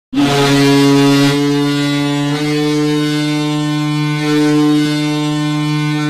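Ak Bars Kazan's hockey goal horn sounding as one long, loud, deep chord of several tones, with small shifts in pitch about a second in and again near two and a half seconds.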